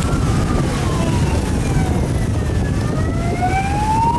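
An emergency vehicle's siren wailing in slow sweeps, falling for about two and a half seconds and then rising again, over a steady low rumble of traffic.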